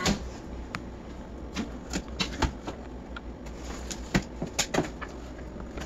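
A cardboard box being slit open with a knife and its flaps handled: a scatter of irregular clicks, scrapes and cardboard rustles.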